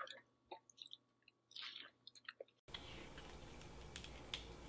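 Quiet close-up chewing and wet mouth smacks of someone eating food dripping with cheese sauce. About two-thirds in, this cuts off suddenly to a steady hiss with two sharp clicks.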